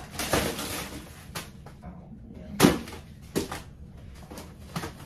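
Several sharp knocks and clatters of objects being handled and set down, the loudest a little past halfway.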